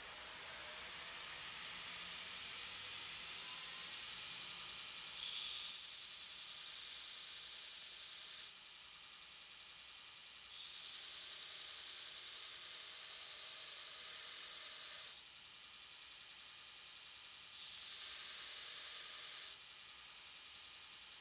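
Belt grinder grinding a steel chisel blank: a steady hiss that gets louder while the steel is pressed to the belt and eases off between passes, three times.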